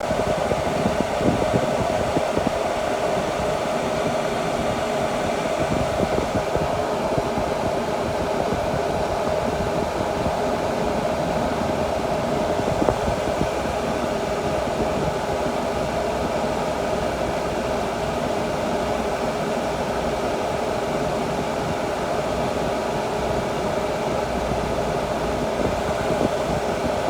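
1971 Mercedes-Benz 280SE 3.5's air conditioning running: a steady rush of air from the blower fan with a constant hum.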